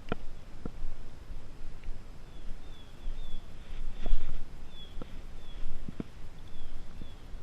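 Outdoor ambience: a small bird chirping over and over in short, slightly falling high notes. Under it are a low rumble and a few light clicks.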